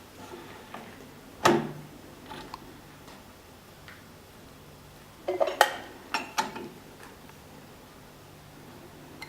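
Metal parts knocking and clinking: one sharp clank about a second and a half in, then a quick cluster of clanks and clicks a little past the middle, with a faint steady low hum underneath.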